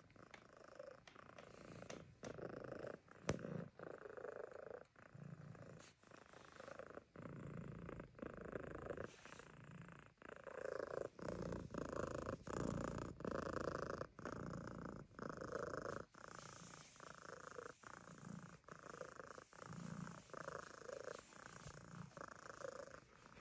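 Siamese cat purring steadily, the purr swelling and pausing with each breath about once a second. A brief sharp click about three seconds in.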